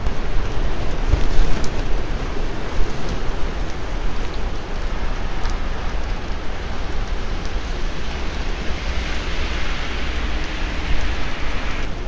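Heavy typhoon rain pouring on the street, with strong wind making a constant low rumble under the hiss. The rain hiss grows stronger from about nine seconds in.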